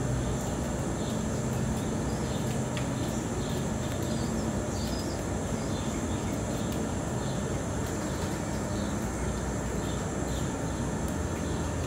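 Steady background hum and hiss, with faint chirps now and then.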